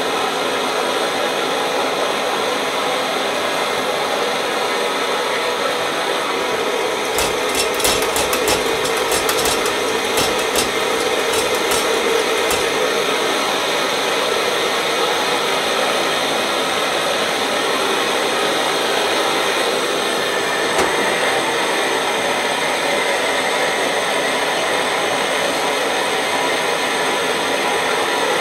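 Optimus 111 paraffin stove's roarer burner running steadily. A run of irregular clicks and knocks comes from about 7 to 12 seconds in. A single knock comes about 21 seconds in as a kettle is set over the flame, after which the burner's tone shifts a little.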